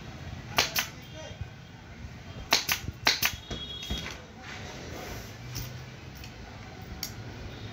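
Pneumatic upholstery staple gun firing staples through fabric into a wooden sofa frame: about seven sharp snaps over the first four seconds, several in quick pairs. A single click follows near the end.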